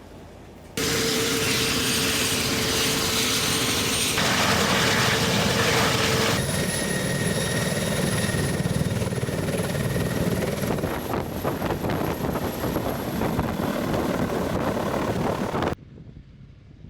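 Military helicopter in flight: the turbine engines whine over dense rotor and engine noise. It starts suddenly about a second in, shifts abruptly twice, and cuts off shortly before the end.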